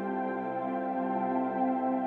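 Calm ambient new-age music of long, held chords.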